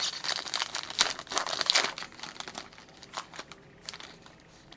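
Foil wrapper of a hockey card pack crinkling and tearing as it is ripped open by hand. The crackling is dense for the first two seconds, then thins to scattered crackles.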